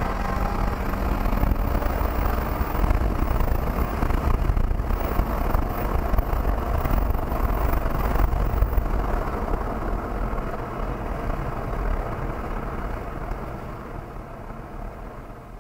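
Jaguar XE S's supercharged 3.0 V6 running hard on a race track, heard from inside the cabin mixed with heavy road and wind noise. The sound fades over the last few seconds as the car comes off the power.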